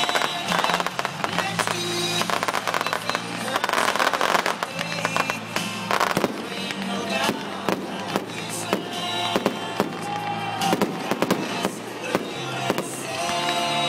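Fireworks bursting overhead: a steady run of sharp bangs and crackles throughout, over music that plays along with the show.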